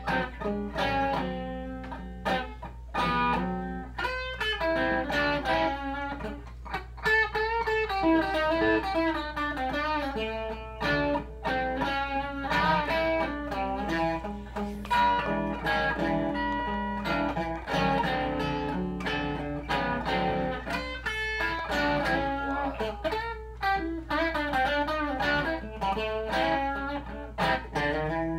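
Electric guitar through a combo amplifier playing a blues solo: quick single-note runs with bent and wavering notes. A steady low hum sits underneath.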